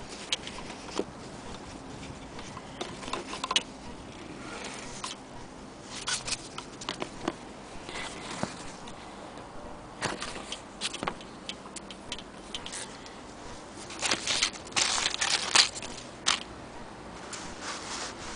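Irregular light clicks and ticks with short rustles as fabric and the parts of an antique Singer 15K80 hand-crank sewing machine are handled. Louder rustling comes a little over two-thirds of the way through.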